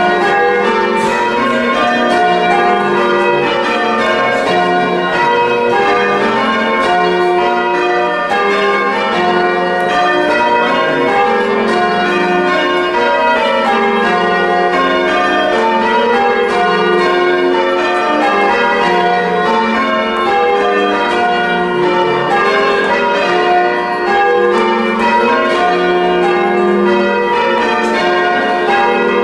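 Full-circle church tower bells change ringing plain hunt, the bells striking one after another in a steady, unbroken rhythm.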